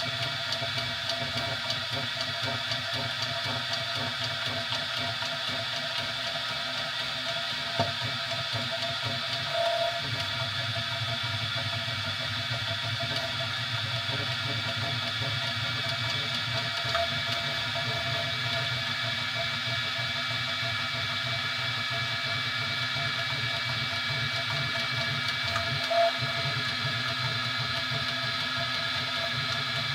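3D printer running: a steady hum and whine from its fans and motors, with a few brief ticks and chirps, the loudest near the end.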